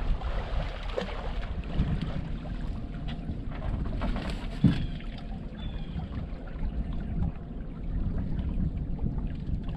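Wind rumbling on the microphone aboard a fishing boat, with scattered knocks of gear on the boat. One sharper knock about four and a half seconds in.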